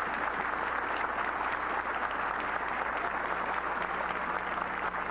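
Audience in a hall applauding: a dense, steady clapping.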